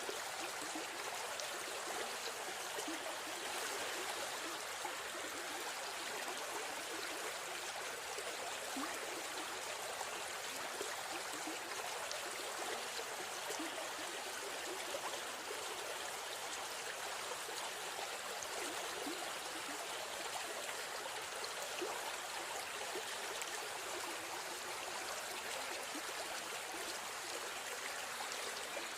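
Steady rushing and babbling of a river stream flowing over rocks.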